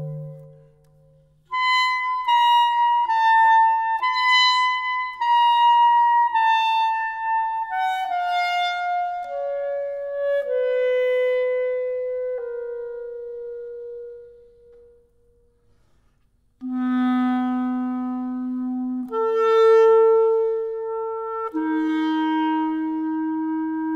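Background music: a solo wind instrument playing a slow melody of held notes that steps downward and fades out. After a short pause past the middle, it comes back with lower held notes.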